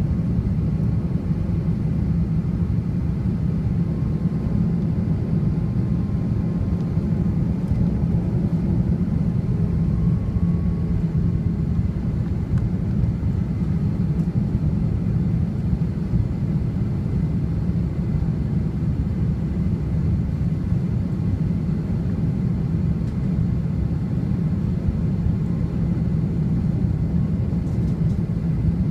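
Jet airliner cabin noise on final approach: the steady low rumble of the turbofan engines and airflow, heard from inside the cabin at a window seat.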